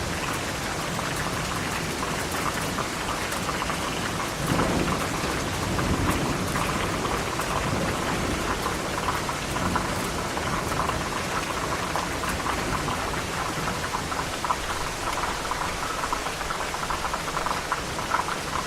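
Steady rain falling, with a low rumble of thunder rolling in about four seconds in and fading over the next few seconds.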